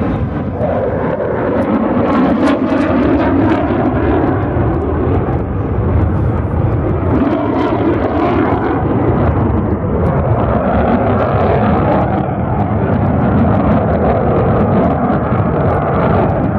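Loud, steady jet engine noise from an F-16 Fighting Falcon fighter in flight: a dense rumble whose tone slowly drifts up and down.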